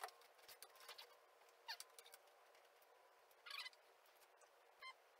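Near silence, with a few faint, short squeaks, a scrape and a click from the roller chain and motor sprocket being handled.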